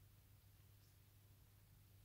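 Near silence: room tone with a faint steady low hum and hiss.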